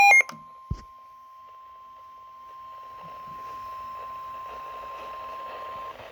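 A weather radio's loud alternating alarm beeps cut off a quarter second in, followed by a single thump. Then a quiet, steady single-pitch warning alert tone plays over static hiss that rises midway, and stops just before the end.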